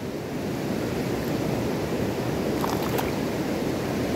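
Steady rush of flowing river water close to the microphone, with a few faint clicks about three seconds in.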